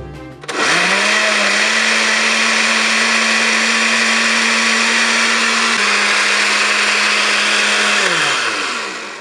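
Osterizer 12-speed blender switched on about half a second in, its motor running at a steady pitch as it blends chunks of food into a purée, dropping slightly in pitch partway through. It is switched off about eight seconds in and the motor winds down, its hum falling in pitch.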